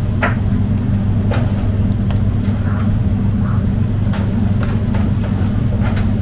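Metal kebab skewers clinking now and then as they are turned over a charcoal grill, over a steady low mechanical hum.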